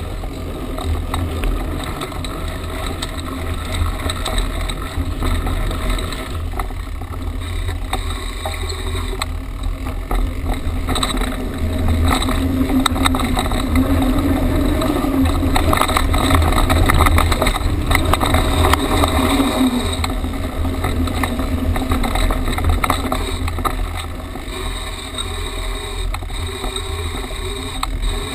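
Riding noise from a mountain bike on a sandy dirt trail: wind rumbling on the handlebar camera's microphone, with the tyres and bike rattling over the rough ground. It is loudest in the middle stretch.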